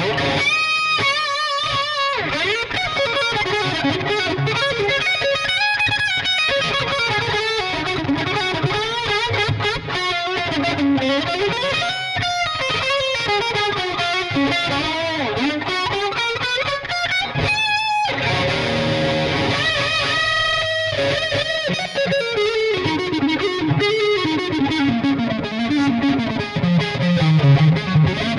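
Epiphone Dot semi-hollow electric guitar played through distortion. It plays fast single-note lead lines with string bends and vibrato, with brief pauses between phrases.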